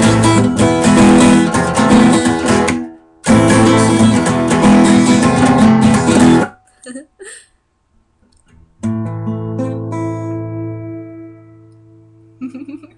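Strummed acoustic guitar music in two loud passages with a brief break between them, then a pause and a single chord struck near nine seconds that rings out and slowly fades.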